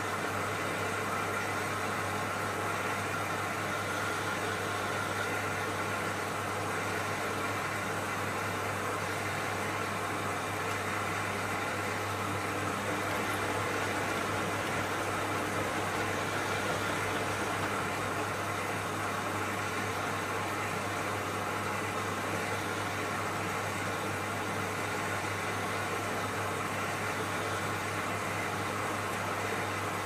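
Zanussi ZWF 1621 W front-loading washing machine running on a rinse: a steady low hum with an even hiss over it.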